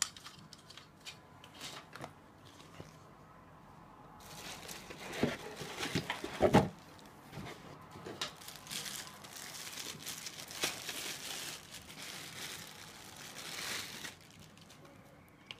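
Thin plastic packaging bag crinkling as cooler parts are unwrapped by hand, after a few light handling clicks; the crinkling starts about four seconds in, is loudest around six seconds, and stops near the end.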